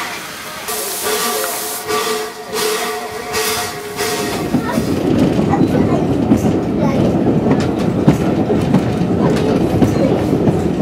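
An A1X Terrier 0-6-0T steam tank locomotive standing at the platform, hissing steam in bursts. About four seconds in, this gives way to the steady rumble and clatter of the train riding along the line, with the wheels clicking over rail joints.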